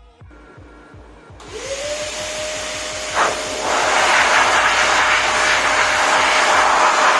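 Prestige Typhoon 06 1000 W wet-and-dry vacuum cleaner run in blower mode: the motor starts about a second and a half in with a rising whine that settles into a steady tone, then a loud rush of blown air swells up about three and a half seconds in and holds. A short knock sounds near the three-second mark; faint background music with a steady beat comes before the motor starts.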